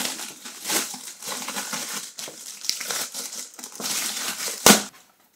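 Black plastic packet crinkling and crumpling as it is handled and torn open, in irregular crackles, with one sharp loud rip about four and a half seconds in.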